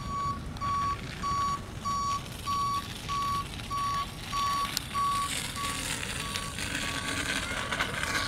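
A truck's reversing alarm beeping steadily, about two beeps a second, loud for the first five seconds and then fainter.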